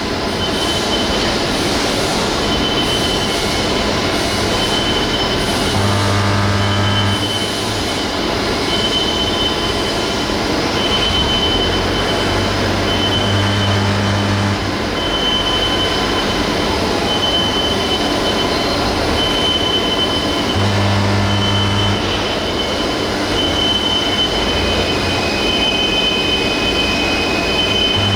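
Heavy industrial machinery running with a steady, loud din. A high squeal comes and goes, and a low hum swells for about a second roughly every seven seconds.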